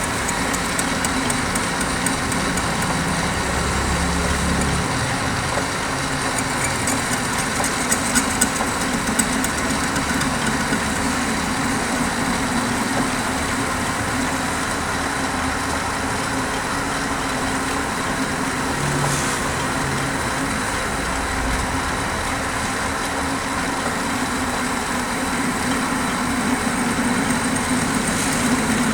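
Machinery running steadily: a constant loud drone with a faint high whine held throughout.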